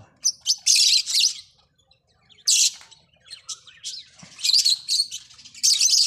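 Lovebirds calling in harsh, shrill chirps that come in clusters with short quiet gaps, the loudest bunches about half a second in, around two and a half seconds in, and near the end.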